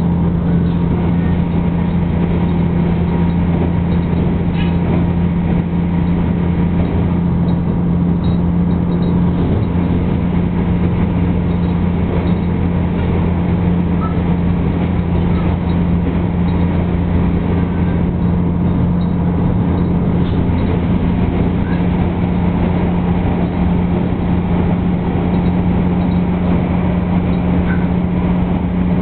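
Asa Kaigan Railway diesel railcar running steadily, heard from inside the passenger cabin: a loud, constant low engine drone under the rumble of wheels on rail.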